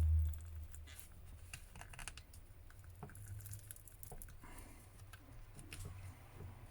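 Small clicks and scrapes of a tool prying at a smartphone's glued-in battery, after a dull low bump at the very start.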